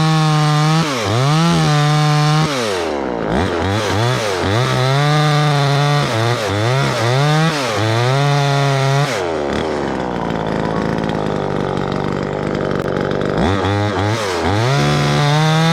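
Chainsaw revving up and down over and over as it cuts a limb, with a steadier, rougher stretch in the middle and more revving near the end.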